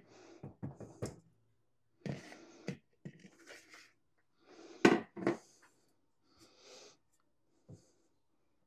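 Silicone spatula scraping a soft filling out of a bowl and knocking against the rim of a stainless steel stand-mixer bowl: a string of short scrapes and taps, the loudest knock about five seconds in.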